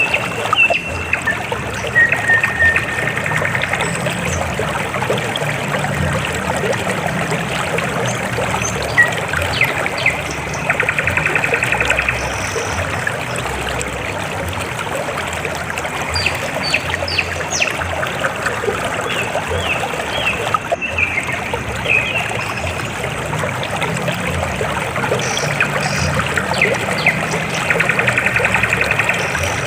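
River water flowing and trickling steadily, with scattered short high chirps and, twice, a brief pulsed trill.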